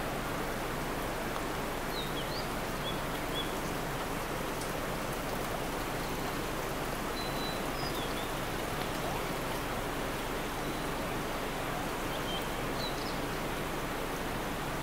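Steady rushing of a mountain stream, with a few faint high bird chirps about two, seven and thirteen seconds in.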